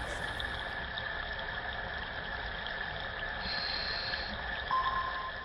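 Steady watery rushing noise, like an underwater ambience bed, with faint steady tones over it; a new higher tone comes in near the end.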